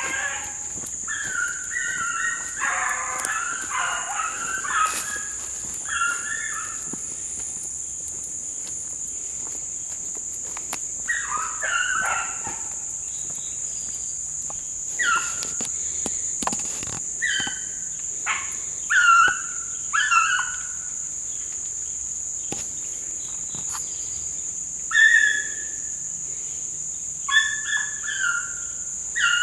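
Running hounds baying and barking in groups of calls over a steady, high-pitched chorus of crickets. A dense run of barks fills the first several seconds, then single barks and short bursts come at intervals.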